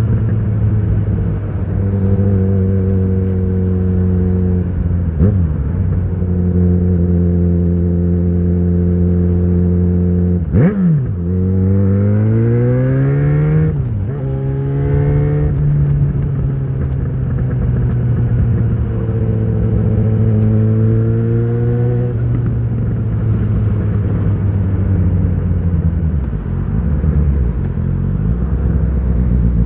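Yamaha XJ6 inline-four engine through an Ixil full exhaust with the dB killer in, riding at steady revs. About a third of the way in the revs dip sharply and then climb quickly under acceleration, drop again at a gear change, and settle; later they rise gently once more before easing off.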